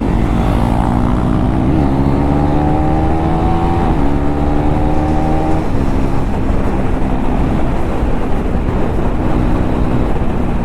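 KTM 390 Duke single-cylinder engine, run without its exhaust dB killer, accelerating hard. Its pitch climbs through successive gears over the first four seconds or so, then it eases off to a steady cruise, with wind noise on the microphone.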